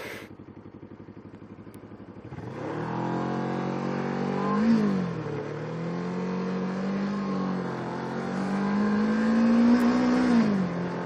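The Kawasaki Ninja 650R's parallel-twin engine runs low and lumpy, then pulls away under throttle about two seconds in. Its pitch climbs, drops at a gear change about five seconds in, and climbs again before easing back near the end.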